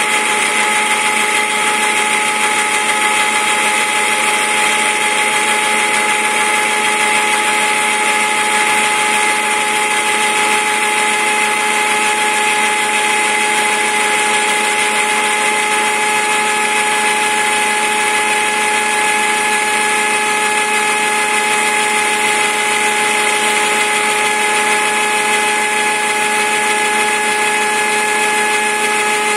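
Homemade 4-axis CNC machine's spindle running with an end mill cutting a rotating wooden sphere: a steady whine over the hiss of the cut.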